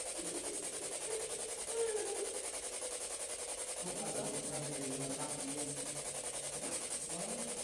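Steady hiss, with faint, indistinct voices murmuring from about four seconds in.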